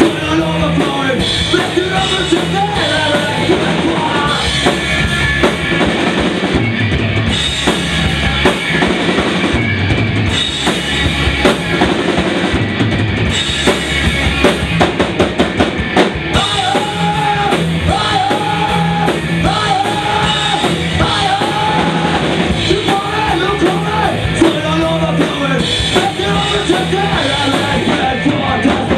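A rock band playing live and loud: a drum kit driving a steady beat under electric guitars.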